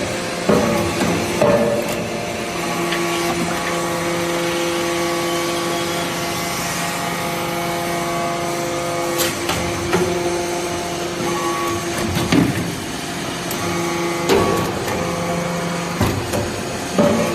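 Y83-4000 hydraulic metal-chip briquetting press running: a steady pump hum made of several tones, broken now and then by sharp metallic clanks.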